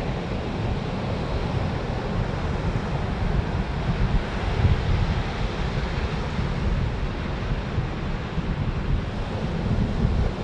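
Sea surf washing steadily onto a beach, with wind buffeting the microphone in a low, uneven rumble.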